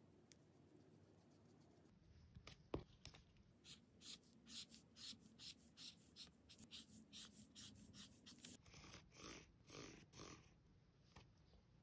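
Faint scratching of a felt-tip marker on paper, short back-and-forth strokes at about two to three a second as it hatches in colour, with one sharp click early on. Near the end come a few fuller strokes of a pen drawn along a ruler.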